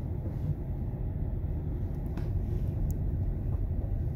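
Low, steady rumble, growing slightly louder, with a couple of faint clicks about two and three seconds in.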